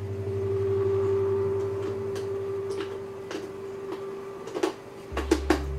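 Scattered sharp plastic clicks and taps from fitting a light attachment onto a plastic helmet, a cluster of them near the end, over background music with held low notes that change about five seconds in.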